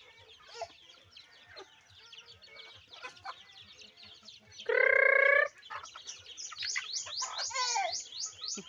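A flock of young chickens clucking and cheeping while being fed. About five seconds in there is one loud cry held on a steady pitch for under a second, and near the end comes a run of quick, falling, high-pitched peeps.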